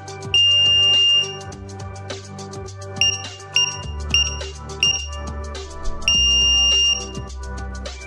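Electronic keypad of a Kohree RV door lock beeping over background music: one long high beep, then five short key-press beeps about two-thirds of a second apart, then a second long beep. The short beeps fit keying in the original code 1234 and LOCK, and the long beeps the lock acknowledging the programming steps.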